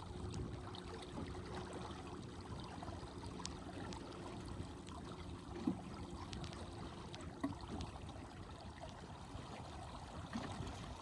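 Water gurgling and trickling along the hull of a small sailboat under sail, with a faint steady hum underneath.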